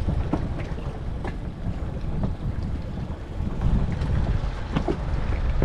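Wind buffeting the microphone aboard a boat: a low, uneven rumble, with a few faint clicks.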